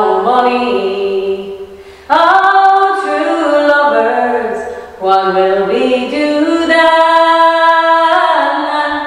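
A woman singing unaccompanied in long, held phrases. Each phrase fades out and a new one begins, about two and five seconds in, and the last fades away near the end.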